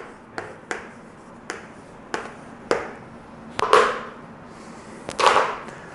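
Chalk tapping on a chalkboard as a sentence is written: sharp, short taps at uneven intervals, then two longer scratchy sounds in the second half.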